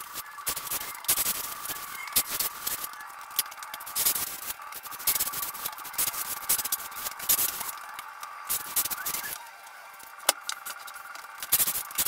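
Plastering trowel scraping and rubbing over a fresh cement mortar floor in short, irregular strokes, with a faint steady whine underneath. The strokes pause briefly about nine and a half seconds in, followed by a single sharp tick.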